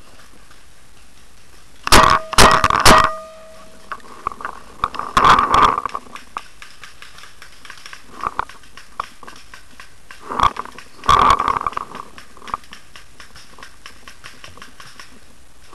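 Paintball marker firing: three sharp pops in quick succession about two seconds in, followed by a brief ringing tone. After that come several more bursts of pops and rattling, about five, ten and twelve seconds in.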